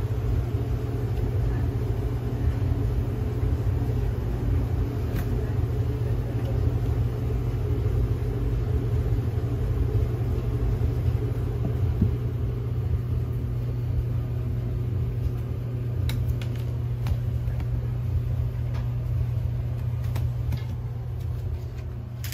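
Steady low rumble or hum, with a few faint clicks late on and fading near the end.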